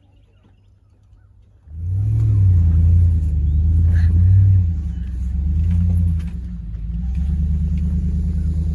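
Motor vehicle engine running close by, coming in suddenly about two seconds in, loud and low, its pitch rising and falling as it revs.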